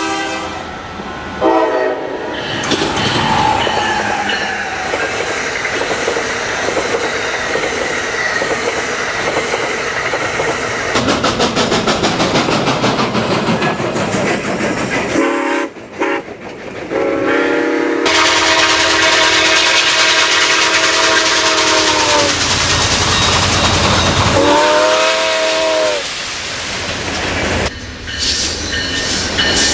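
Recorded sound of real trains passing: a train horn blowing several blasts, the longest a few seconds past the middle, over the rumble of rolling rail cars, with a stretch of fast clickety-clack from wheels over rail joints. The sound changes abruptly a couple of times where different recordings are cut together.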